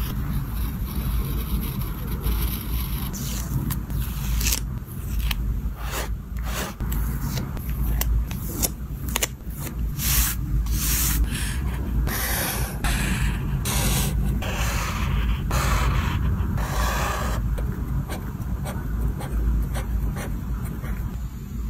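Close-up paper and sticker handling: stickers peeled from their backing sheet and rubbed down onto a journal page with the fingertips, giving a string of short scrapes and rubs of varying length. Near the end a pen is drawn along a ruler. A steady low hum runs underneath.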